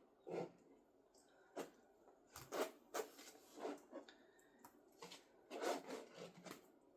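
Faint scattered taps and scrapes from paint-pouring supplies being handled, short and irregular, about one every half second to a second.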